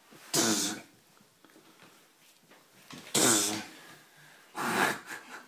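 Kitten hissing three times in short bursts, about a second apart at first and then after a longer gap, while it is swatted at during rough play.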